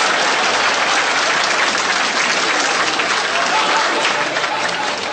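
Studio audience applauding, a loud, dense crackle of many hands clapping that holds steady throughout.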